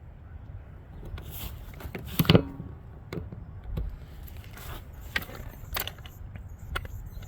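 Scattered clicks, knocks and light scrapes of tools and the tire being handled, with a louder knock about two seconds in, over a steady low rumble.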